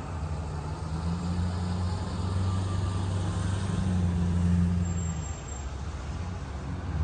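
A motor vehicle's engine running close by with a low hum that grows to its loudest about four and a half seconds in, then drops away, over general street noise.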